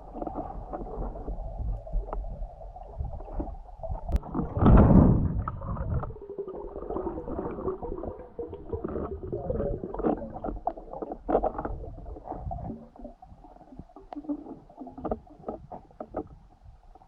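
Muffled water sloshing and gurgling around an underwater camera, with scattered clicks and knocks and one louder whoosh about five seconds in.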